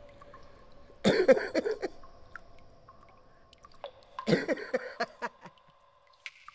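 Logo sound effect: two short bursts of crackling clatter, about a second in and again around four seconds in, each leaving a faint steady two-note hum that fades away near the end.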